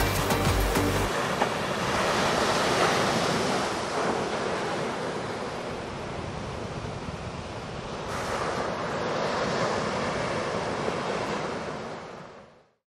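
Background music cuts off about a second in, giving way to ocean surf: waves breaking and washing ashore, swelling twice before fading out near the end.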